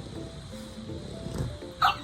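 Background music with a simple stepping melody; near the end a short, loud, sharp high-pitched sound cuts in.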